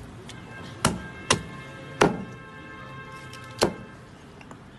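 Meat cleaver chopping a braised pig's trotter on a round wooden chopping block: four sharp chops, the first about a second in.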